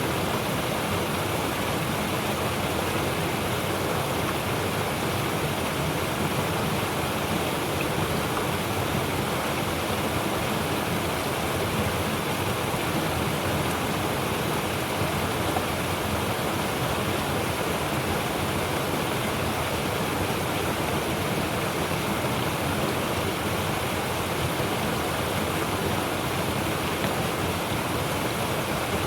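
Mountain stream rushing steadily over rocks, an unbroken wash of water with a deep low rumble.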